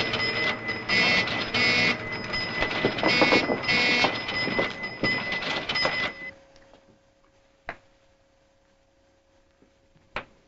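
Film sound effect of a 1950s electronic computer working: rapid mechanical chattering in bursts with a steady high electronic tone. It cuts off suddenly about six seconds in, leaving a faint hum and two sharp clicks.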